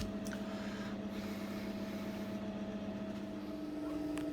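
Steady electric motor hum that steps up in pitch a little after three seconds in, with a single knock at the very start.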